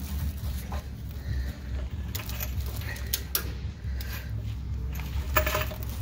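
Scattered light metallic clinks and rattles of hand tools and suspension parts being handled, with a denser burst of clinking near the end, over a steady low hum.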